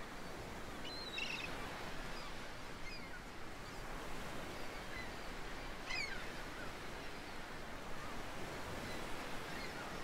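Seagulls calling, a handful of short high falling cries, the clearest about a second in and about six seconds in, over a steady background of surf.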